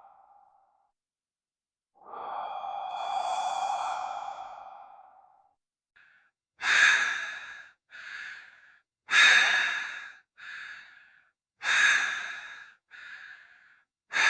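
Ghost-breath sound effect: slow human breathing processed to sound eerie. A long drawn-out breath comes first; then, after a pause, a run of short, sharper breaths in pairs, each loud breath followed by a softer one, about every two and a half seconds.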